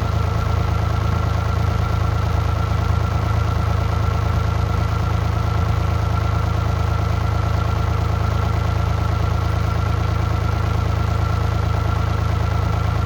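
Mini excavator engine idling steadily at a constant low speed.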